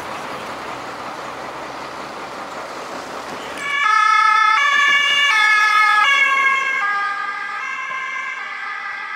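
Rushing noise of road traffic, then about a third of the way in an emergency vehicle's German two-tone siren (Martinshorn) starts loud, switching between its two pitches about every three-quarters of a second, and grows somewhat quieter near the end.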